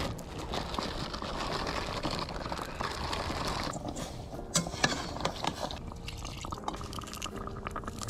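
Rice being poured into a cooking pot of kabsa, a steady rushing pour for about the first three and a half seconds that stops abruptly. Only scattered light ticks and crackles follow.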